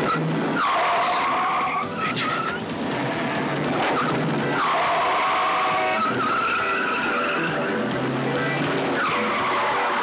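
Car tyres squealing in a string of long skids as cars take hard turns. There are three main squeals and a short one; each starts with a falling sweep, then holds a steady pitch. Engines run underneath.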